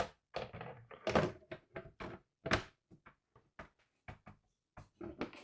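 The Elgato Prompter XL's front glass assembly being slid and pushed onto the prompter body: a run of short, irregular knocks and thunks as the parts meet, the loudest about a second in and again about two and a half seconds in.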